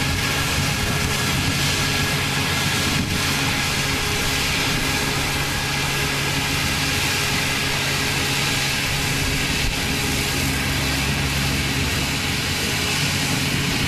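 Small crawler rice combine harvester running steadily as it cuts rice, its engine and threshing machinery giving a continuous drone with a steady hum.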